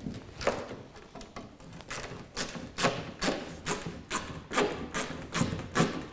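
A ratchet spanner undoing the last top bolt of a Land Rover Series 3's front wing: a run of sharp clicks, sparse at first, then about two or three a second from about two seconds in.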